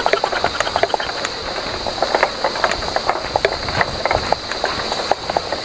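Mountain bike rolling downhill over a rough dirt trail, its frame and parts rattling with many quick, sharp knocks over the bumps, against a steady high hiss.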